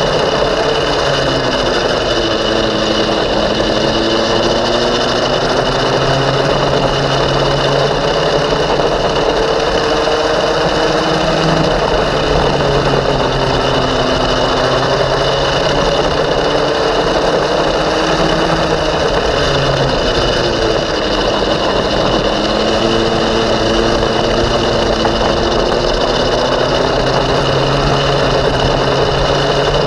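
Racing go-kart's small engine, heard close up on board, pulling hard with its pitch rising along the straights and dropping as it slows for the corners, several times over.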